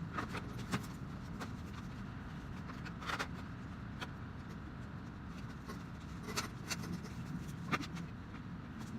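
Scattered light clicks and knocks, about eight in all, over a steady low hum.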